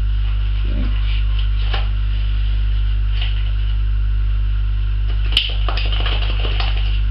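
Steady electrical mains hum, with small clicks and rattles of plastic test-lead accessories being handled and one sharp click about five seconds in.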